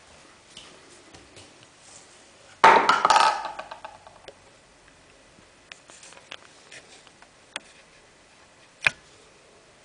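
A tube-shaped pool cue case handled on a granite countertop. About a quarter of the way in there is a loud clatter against the stone that dies away over about a second as the case is picked up. Light taps and rubbing follow, then one sharp knock near the end.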